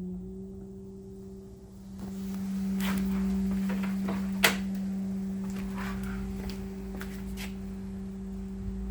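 Small electric drive motor of a pedal boat running at a steady, even hum under its speed controller, with scattered clicks and one sharp click about four and a half seconds in.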